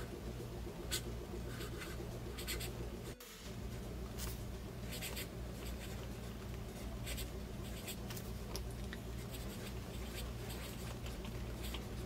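A TWSBI Swipe fountain pen's medium steel nib scratching across Maruman Mnemosyne dot-grid paper in short, irregular strokes as words are written out in cursive.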